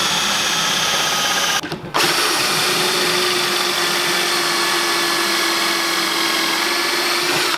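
DeWalt cordless drill driving a pocket-hole bit through a wooden board held in a pocket-hole jig. It runs with a steady motor whine, stops briefly about a second and a half in, then starts again and runs steadily until it stops near the end.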